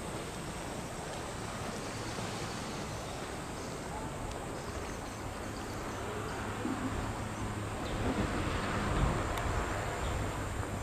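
Steady outdoor background noise of a seaside park, with a low rumble underneath. About eight seconds in, wind buffets the microphone more strongly for a second or two.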